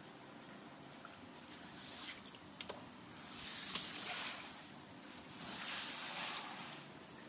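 A rubber floor squeegee pushed through standing rainwater on a concrete floor, sloshing the water in three swishes, the middle one loudest. Small drops tick faintly between the strokes.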